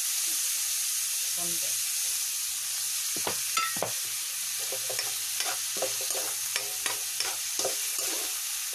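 Ground meat and onion sizzling as they sauté in a wok. From about three seconds in, a metal ladle stirs the pan, scraping and clinking against it.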